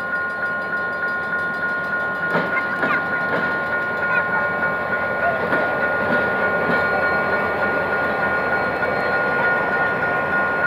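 GM GT22CW-2 diesel locomotive hauling a passenger train rumbling past at close range, its wheels clattering and knocking on the rails. Over it a level-crossing warning alarm sounds a steady two-tone signal that pulses at a regular beat.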